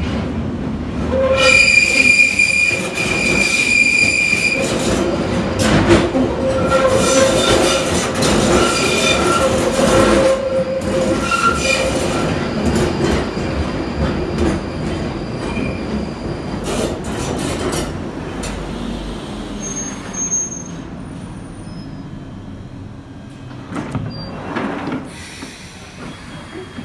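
London Underground Northern line train pulling into the platform. Its wheels squeal loudly for about ten seconds as it enters, then a rumble fades as it brakes to a stop.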